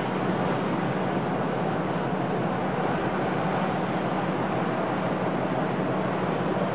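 A boat's engine running with a steady drone and hum, under a constant rushing noise of wind and water.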